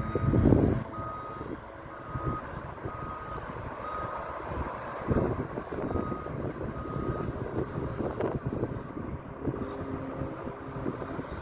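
Vehicle reversing alarm beeping about once a second, a short steady tone each time, heard over wind buffeting the microphone, with a strong gust at the start.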